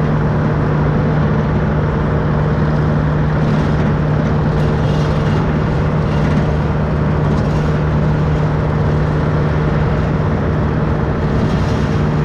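Engine of a work machine running at a steady speed while being driven. It gives a constant low hum with a fainter higher tone over it.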